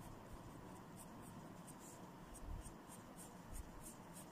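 Felt-tip marker scratching on paper in quick, even back-and-forth strokes, about three a second, as a band of a drawing is coloured in. Faint.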